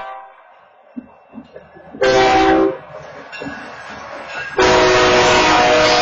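Locomotive air horn sounding a chord: a short blast about two seconds in, then a long blast starting near the end. It is the lead engine's onboard horn, sounded because the crossing's wayside horns are offline.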